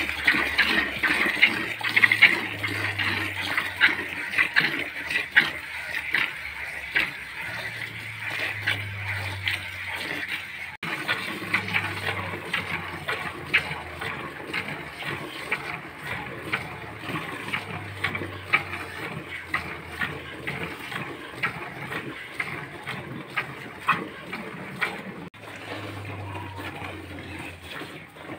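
Milk squirting from a cow's teats into a plastic bucket during hand milking, a short spurt with each squeeze, over and over.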